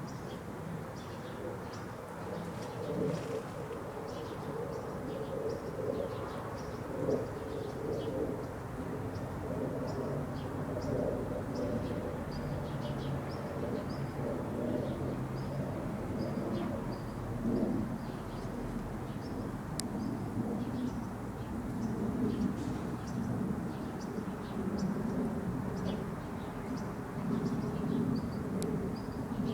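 A continuous low, wavering hum of unknown source, with small birds chirping over it.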